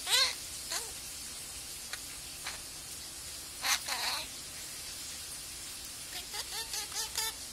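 Budgerigar chattering in its talk-like babble: a short scratchy call at the start, a harsher buzzy call about four seconds in, and a quick string of warbled chirps near the end.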